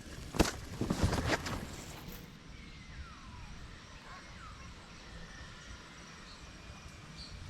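Outdoor ambience: a few sharp knocks or steps in the first second and a half, then steady low background noise with faint bird calls.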